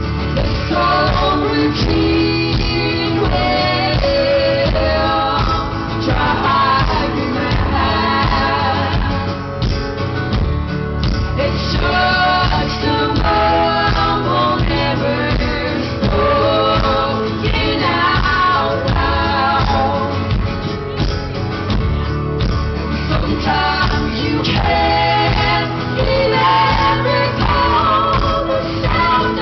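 Live band performance: female voices singing over guitar and a rhythm section, recorded from the audience with poor, bass-heavy sound.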